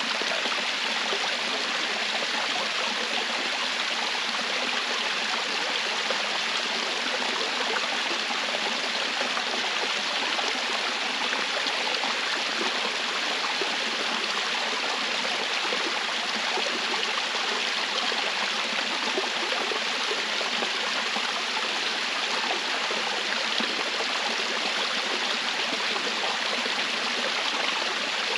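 Rushing water of a stream or small waterfall, a steady even hiss with no change throughout.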